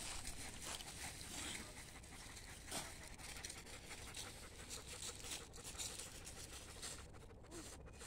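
Faint, irregular rustling and crackling of dry fallen leaves under the feet of a toddler and German Shepherds moving about on them.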